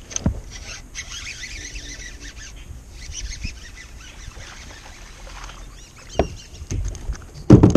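A hooked fish thrashing and splashing at the water's surface, with sudden splashes from about six seconds in and the loudest one near the end.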